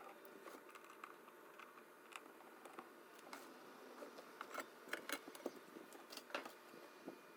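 Irregular light clicks and taps, more frequent and sharper after about four seconds, over a faint steady background.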